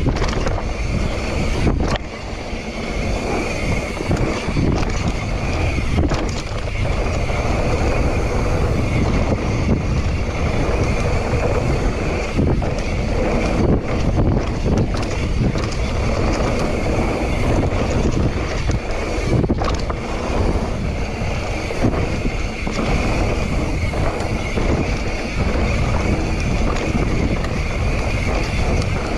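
Mountain bike descending a dirt trail at speed: steady wind buffeting on the microphone mixed with knobby tyres rolling on dirt, with a few sharp knocks and rattles from the bike going over bumps.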